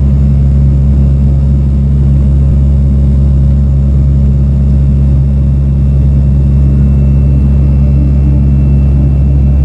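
Turboprop airliner in flight, heard from inside the cabin beside the propeller: a loud, steady engine and propeller drone with a deep, even hum.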